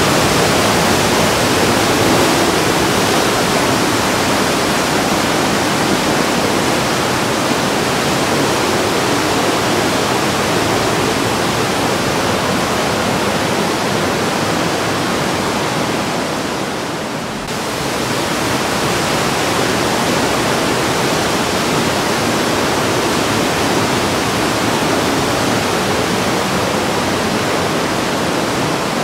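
The Breitach river rushing through its narrow rock gorge: a steady, loud rush of water that dips briefly a little past halfway.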